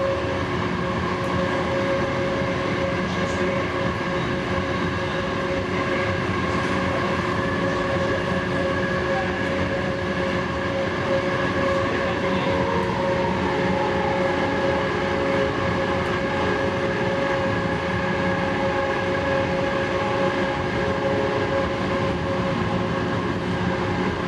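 Inside a LYNX Blue Line light rail car running at speed: a continuous rumble of wheels on the track with a steady whine over it.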